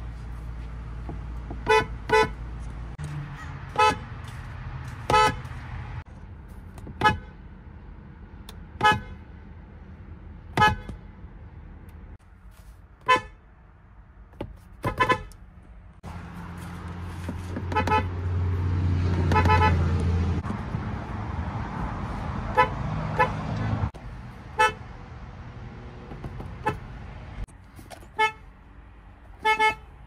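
Horns of several Hyundai cars sounded one after another, mostly in short toots, some in quick pairs, with one held for about two seconds near the middle. A low steady hum runs beneath.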